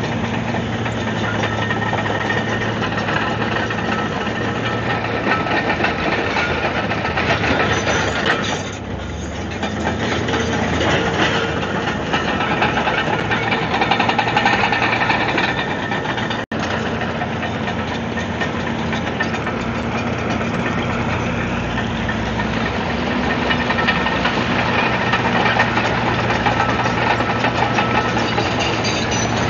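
Komatsu D155AX-7 bulldozer's six-cylinder diesel engine running steadily with a deep hum. It eases off briefly about nine seconds in, and the sound cuts out for an instant about sixteen seconds in.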